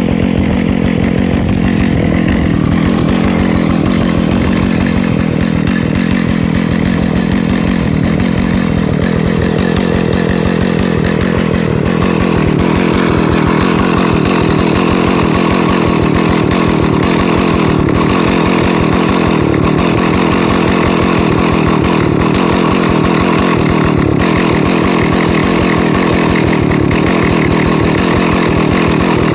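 Husqvarna 2100 CD two-stroke chainsaw running continuously, its engine note shifting slightly higher and louder about twelve seconds in.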